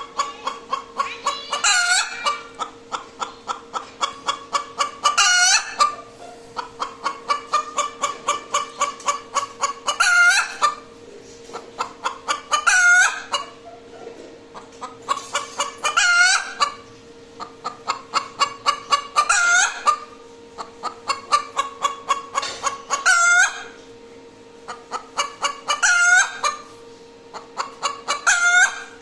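Hen's egg-laying song: runs of quick clucks, each building to a loud drawn-out squawk, repeated about every three seconds, nine times over. It is the call a hen gives just after laying an egg.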